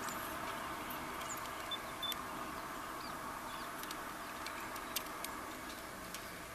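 Steady outdoor background hiss, with scattered faint clicks and a few brief high chirps like small birds.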